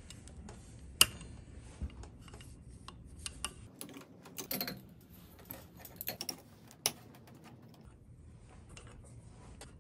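Scattered sharp metal clicks and clinks of locking pliers gripping and working steel cylinder studs out of an engine case, with the case and tools handled on a wooden bench. The sharpest clicks come about a second in and again about two-thirds of the way through.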